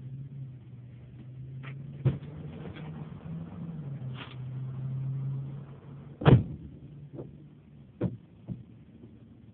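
A steady low hum that wavers slightly in pitch, broken by a few sharp knocks; the loudest knock comes about six seconds in, and the hum fades soon after it.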